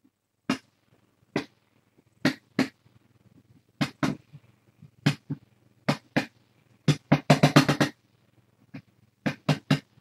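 A series of sharp, hard clicks and taps at irregular spacing, with a quick rattling run of about ten taps about three-quarters of the way through, over a faint steady low hum.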